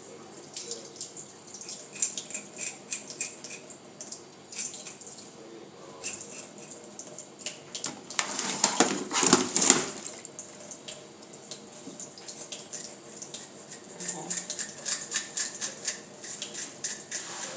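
Kitchen tap running into a stainless steel sink while a scaled fish is rinsed and rubbed by hand to wash off loose scales, with small clicks and scrapes against the sink. The water rushes louder for a couple of seconds about eight seconds in.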